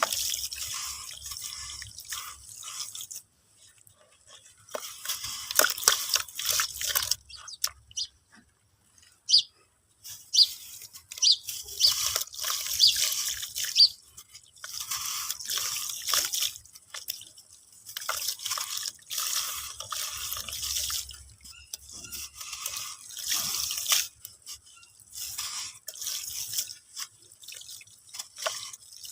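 Crunchy crackling of 'dry water' being crumbled and crushed, in irregular bursts with a few short pauses and some brief ticks between them.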